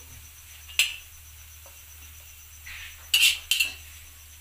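Steel spoon clinking and scraping against an iron kadhai as fried onions and their oil are tipped out: one sharp clink about a second in, a soft scrape, then two louder clinks close together near the end, over a low steady hum.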